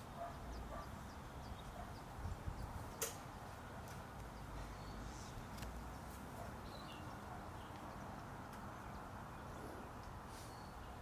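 Faint outdoor background hiss with one sharp click about three seconds in and a few faint ticks.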